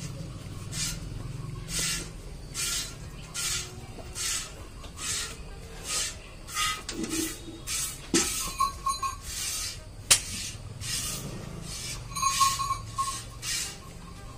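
Milk squirting from a water buffalo's teats into a steel bucket during hand milking: a rhythmic hiss, one stream about every three-quarters of a second. Two sharp clicks stand out in the second half.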